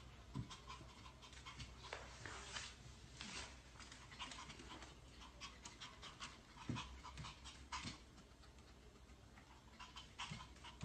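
Small dog panting quietly, with scattered light clicks and taps.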